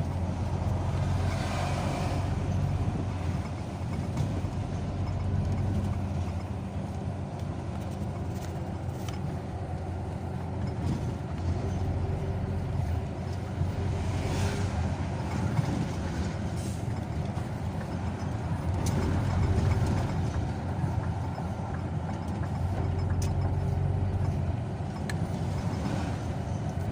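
Car driving along a road: steady low engine hum and tyre noise from inside the moving car.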